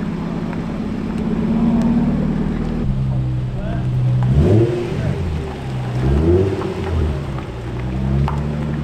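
Car engines as cars drive off: a steady engine note for about three seconds, then a Nissan 350Z's V6 revving up and down several times as it pulls out and drives past.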